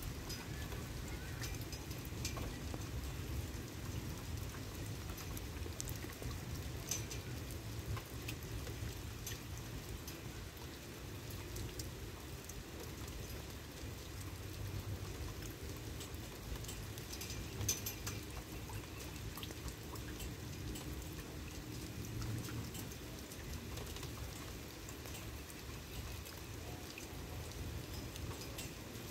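Light rain falling, with scattered sharp drop ticks close by over a low, steady rumble.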